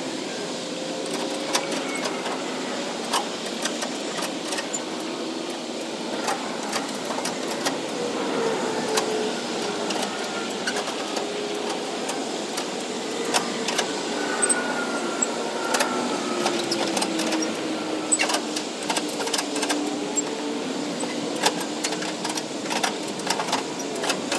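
A motor running, its pitch slowly rising and falling, with many sharp clicks and clanks scattered through it.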